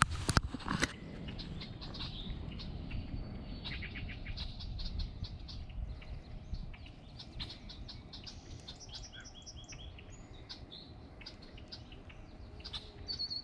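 Small birds chirping and calling on and off, many short high notes, over a low steady rumble. A few sharp knocks in the first second are the loudest sounds.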